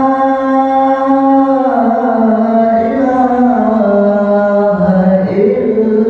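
A man chanting into a handheld microphone in long, drawn-out melodic notes, each held for a second or more and sliding up and down between pitches, with a lower held note near the end.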